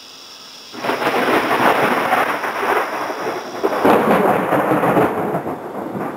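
Thunder breaking suddenly about a second in and rolling on loudly, with a second surge in the middle before it begins to fade. Crickets trill steadily under it and fall silent partway through the thunder.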